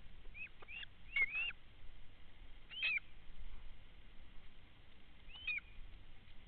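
Short, chirping bird calls, each a quick bend in pitch: a few close together in the first second and a half, another near three seconds and one more about five and a half seconds in, over a faint hiss.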